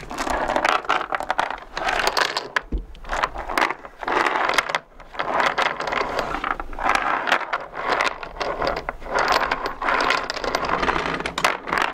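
Anchor chain being fed by hand down a deck pipe into the chain locker, its links clattering and scraping against the fitting in quick runs with short pauses.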